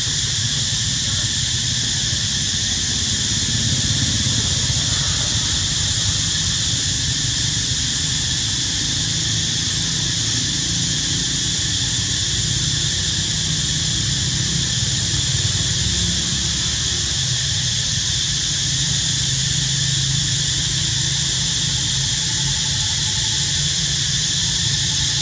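Steady, high-pitched drone of an insect chorus in the forest trees, like cicadas, unchanging throughout, with a low rumble underneath.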